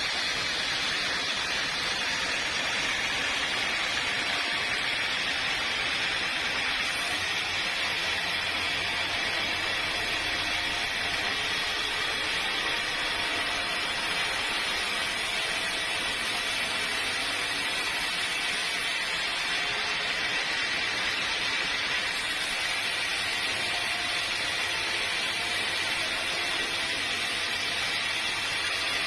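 Sawmill machinery running steadily: a continuous even noise with a faint steady whine.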